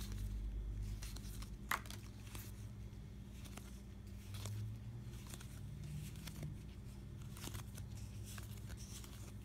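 Thick cardboard Dice Forge cards being thumbed through in the hand: scattered soft clicks and slides as each card is moved to the back, the sharpest about two seconds in, over a low steady hum.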